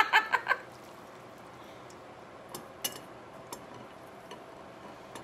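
A few light clicks and taps, the sharpest about three seconds in, over low room noise.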